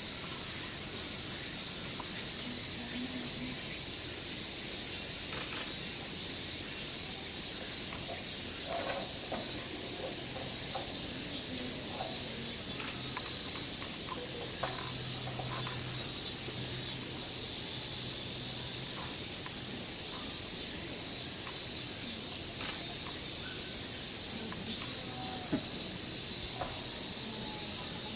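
Steady high-pitched chorus of cicadas, with faint scattered clicks.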